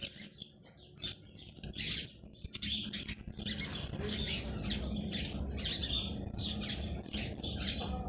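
Small birds chirping and calling in many quick short notes, growing busier and louder about three seconds in, over a steady low rumble.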